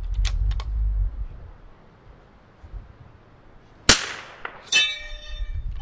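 A single shot from a Vudoo V22 .22 LR rimfire rifle, a sharp crack. Under a second later a steel gong target rings with a clear metallic tone that fades over about a second: a hit downrange. A low rumble comes before the shot.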